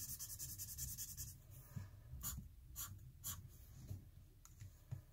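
Sharpie metallic marker's felt tip scribbling quickly back and forth on paper, filling in a block of colour, then three separate quick strokes drawing lines about halfway through.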